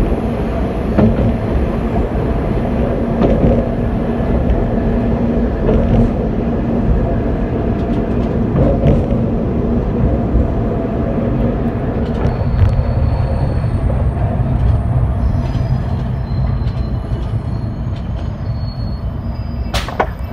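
Diesel railcar running on jointed single track and slowing as it pulls into a station, its engine and wheel rumble easing off in the last seconds. Faint high brake or wheel squeals come in the second half, and a sharp click sounds just before the end.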